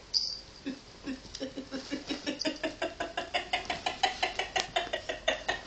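A person laughing in quick, even pulses, about four or five a second, starting about a second in and climbing in pitch as it builds.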